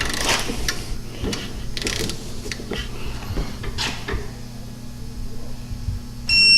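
Hand tools clicking and clanking on suspension hardware while bolts are worked, a scatter of sharp clicks and knocks over a steady low hum. A short electronic beep sounds near the end.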